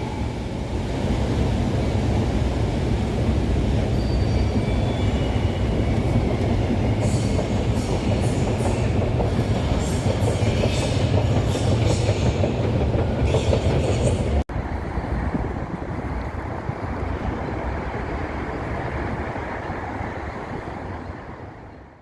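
Metro train running on the rails with a steady rumble, its wheels squealing in bursts about a third of the way in. After a sudden cut about two-thirds through, a quieter steady rumble fades out at the end.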